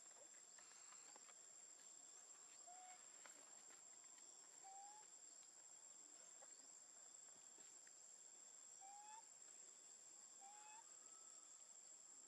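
Near silence: a faint, steady, high insect buzz, like crickets, with four short rising chirps spread through it.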